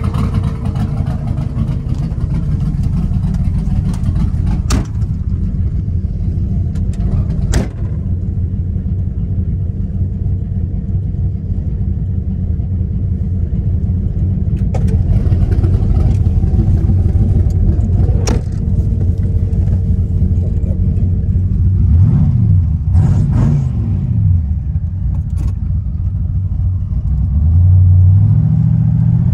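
Twin-turbocharged 383-cubic-inch stroker V8 of a 1955 Chevrolet 3100 pickup running steadily, with a few sharp clicks, revving up and back down about three-quarters of the way through, and louder again near the end.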